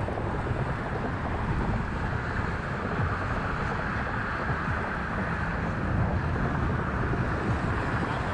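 Steady wind buffeting the microphone, a rumbling rush that drowns out other sounds.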